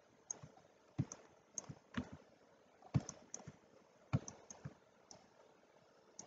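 Irregular sharp clicks of a computer mouse and keyboard, many coming in quick pairs.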